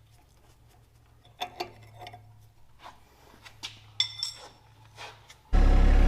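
Scattered sharp metallic clinks of a wrench on the hydraulic hose fittings of a John Deere 1025R backhoe control valve. Near the end the tractor's diesel engine comes in suddenly and loudly, running steadily.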